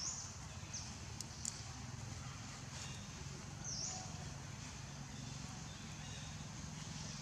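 Outdoor ambience: a steady low hum with short, high chirps near the start, about a second in and nearly four seconds in, and a couple of faint clicks.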